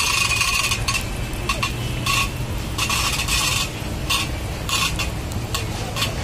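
Steel ladle scraping and clinking in repeated strokes on a large flat iron griddle (tawa) as raw egg is spread over a paratha, each stroke giving a short metallic ring, with the egg sizzling on the hot griddle underneath.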